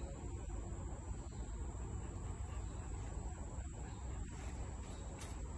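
Steady high-pitched insect trill, crickets or cicadas, over a low outdoor rumble.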